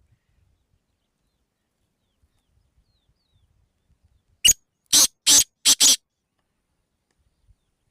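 Black francolin calling: one short, harsh note, then four grating notes in quick succession, a little past halfway through.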